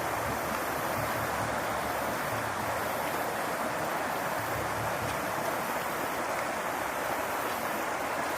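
Floodwater rushing steadily, a constant even rush of moving water.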